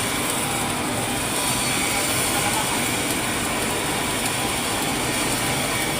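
Automatic pipeline welding equipment running: a steady, unbroken mechanical noise with a hiss that reaches high up, without pauses or distinct strokes.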